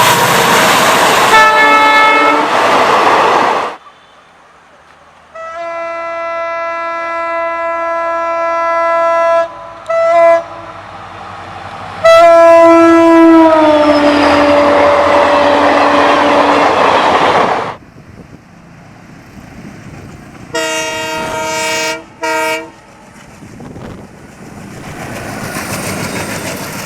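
Indian Railways EMD WDP4 diesel locomotive horn: a long steady blast, a short toot, then a long loud blast whose pitch drops as the locomotive passes, over rail noise. Before it, the rumble and wheel noise of a passing train with a short horn blast. Near the end, an ALCO WDM3D's horn gives a longer and a shorter blast.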